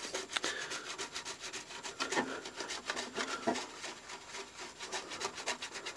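Toothbrush scrubbing a clear Lexan RC car body wet with nitro fuel, a steady run of quick brushing strokes as the paint is stripped off.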